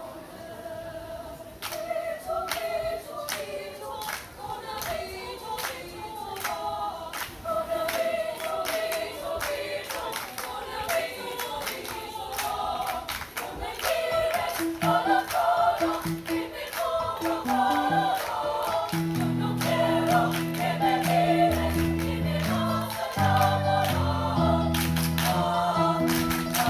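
High school choir singing with rhythmic hand clapping. The singing builds in loudness, and steady low notes join about halfway through.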